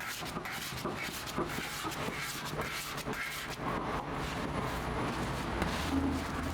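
Bakery dough mixer running, with a low steady hum that grows stronger near the end and many small knocks and clicks.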